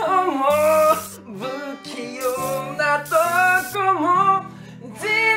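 A man singing a ballad to his own strummed acoustic guitar, the voice carrying long rising and falling phrases over held chords.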